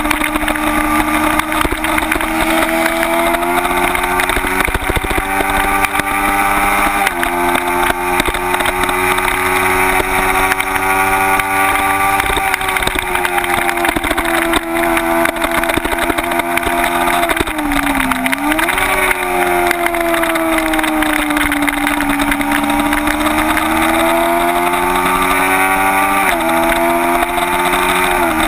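Kawasaki Ninja 250's parallel-twin engine running hard at high revs, heard from a camera on the bike. Its pitch jumps abruptly a couple of times with gear changes and dips sharply, then climbs again about two-thirds of the way through.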